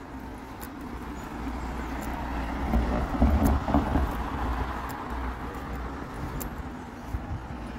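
Road traffic: a motor vehicle passing on the street, swelling to its loudest about three to four seconds in and then fading, over a steady low rumble.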